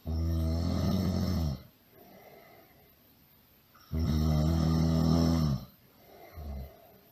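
Loud snoring: two long, low-pitched snores about four seconds apart, each lasting about a second and a half, with quiet breaths between and a short, fainter snore near the end.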